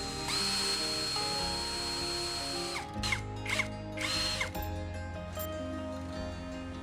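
Electric power tool motor whining at a steady speed, then its pitch drops and climbs back three times in quick succession as the trigger is let off and squeezed again, over background music.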